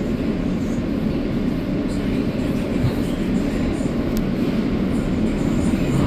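Inside an R160A New York City subway car: steady running rumble of the train, wheels on rail and car noise, with a faint tick about four seconds in.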